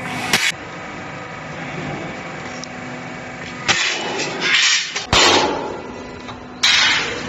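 Angle bar roll forming machine running with a steady hum while a steel strip feeds through its rollers. The hum is broken by several loud, harsh bursts of noise and a sharp bang about five seconds in.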